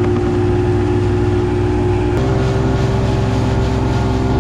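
Boat engine running steadily, its note stepping slightly higher about two seconds in.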